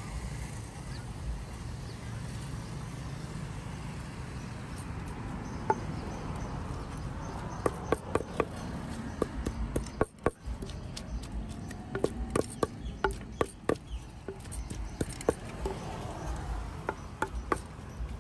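Sharp knocks and taps of utensils making papaya salad, coming in irregular clusters a few tenths of a second apart from about six seconds in, over a steady low rumble.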